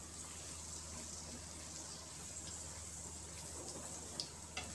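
Hot oil sizzling steadily in a kadai as ingredients deep-fry, with a couple of light clicks near the end.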